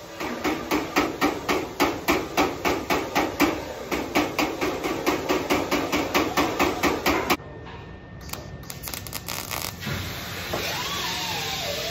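Rapid, even hammer taps on the sheet-metal air dam, about four a second for some seven seconds, then they stop. Near the end, music with a wavering melodic line comes in.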